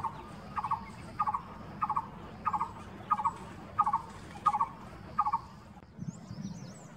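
Coppersmith barbet calling its repeated tuk note, a sound likened to a hammer hitting metal: nine evenly spaced notes about two-thirds of a second apart, stopping about five seconds in.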